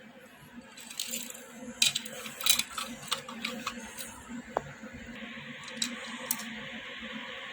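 Toy train running, its small motor humming steadily under irregular clicks and rattles.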